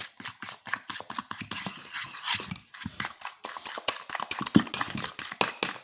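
Metal spoon clicking and scraping rapidly against the inside of a mug, stirring mug-cake batter.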